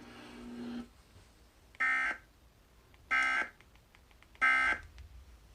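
Emergency Alert System end-of-message data bursts: three short, harsh, buzzy bursts of the SAME digital code, about a second and a quarter apart, signalling the end of the alert.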